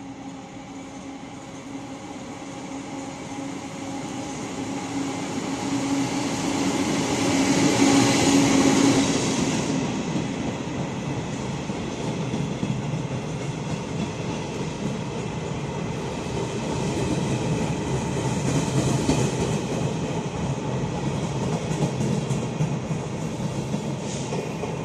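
Taiwan Railways tourist train running through an underground station without stopping. Its rumble builds as it approaches and is loudest as the front passes about eight seconds in, with a steady hum. The carriages' wheels then keep rumbling past the platform.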